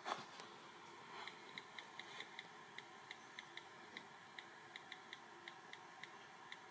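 Faint clicks of a touchscreen keyboard as someone types on a phone: short, crisp ticks at about four a second, unevenly spaced, starting about a second in.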